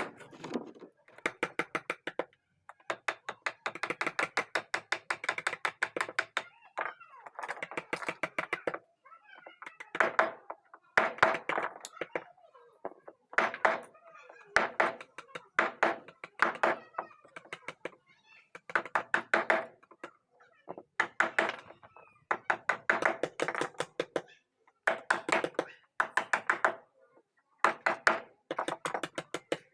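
Rapid, even taps of a chisel being struck to carve a pattern into a wooden door, about ten strikes a second, in bursts of one to three seconds with short pauses between them. Each burst carries a light metallic ring.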